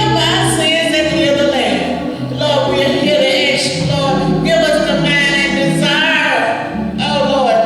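Gospel singing: voices carrying a slow melody over held low accompaniment notes.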